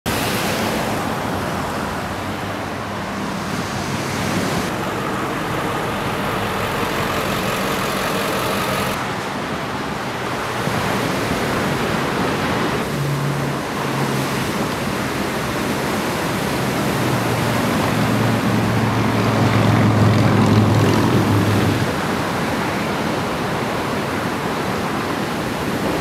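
Steady rushing noise of ocean surf and wind, with a low steady hum in some stretches. The hum is loudest about three-quarters of the way through, and the sound changes abruptly a few times.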